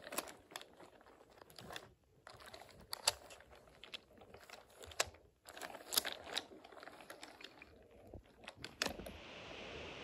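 Wooden toy train cars rolling along wooden track: faint, irregular light clicks and clatter from the wheels running over the track. Near the end a soft steady hiss comes in.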